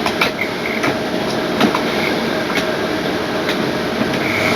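Model train running along the layout's track: a steady running noise with sharp clicks about once a second as the wheels cross the rail joints, and a faint high motor whine.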